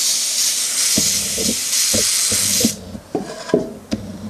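Veda WD-130A all-metal airbrush spraying: a steady hiss of compressed air through the nozzle while the trigger is held. The hiss cuts off suddenly about two and a half seconds in, followed by a few light clicks.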